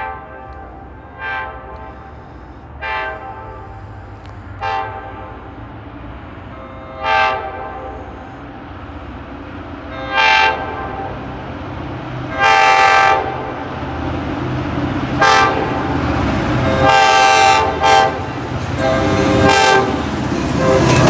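Approaching diesel freight locomotive sounding its horn again and again: about eleven blasts, mostly short with two longer ones, each louder than the last, over the rising rumble of the engine and wheels as it draws near.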